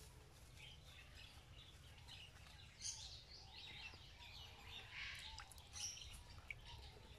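Near silence: faint outdoor background with a low rumble and a few scattered faint high chirps.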